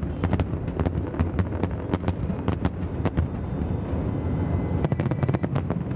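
Fireworks going off in a rapid, irregular series of sharp bangs and crackles, over a steady low rumble of wind on the microphone.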